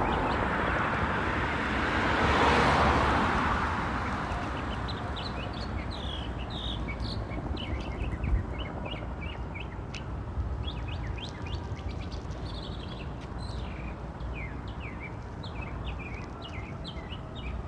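A songbird singing: phrases of short, quick, downward-sweeping chirps repeated over and over, over a steady hum of city traffic. A louder rushing noise swells and fades about two to three seconds in, like a vehicle passing.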